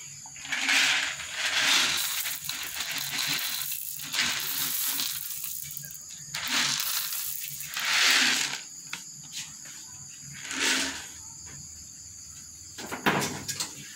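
Dry cat kibble pouring and scattering onto a tile floor, a rattling hiss in several bursts a few seconds apart, with small clicks near the end.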